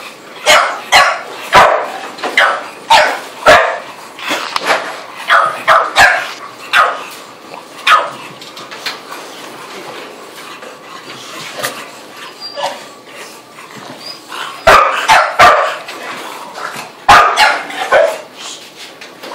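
Two bulldog-type dogs, one of them a shorty bull, barking in quick bursts as they play, with a quieter stretch in the middle before the barking picks up again.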